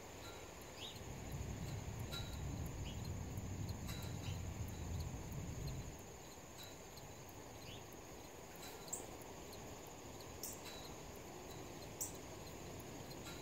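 Insects trilling steadily on one high tone, with scattered short bird chip notes, three of them sharper near the end. A low rumble swells about a second in and fades about six seconds in.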